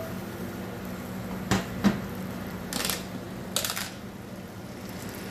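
Cast-iron skillet set down on a steel counter: two sharp knocks about a second and a half in, followed a second later by two short rustling noises. A steady low hum runs underneath.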